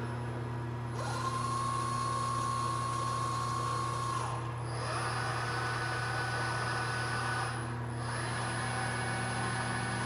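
Nachi SH200 industrial palletizing robot running through its motions, its servo drives whining as the axes move: one steady whine for about three seconds, a brief break, then a second slightly higher whine, over a constant low hum.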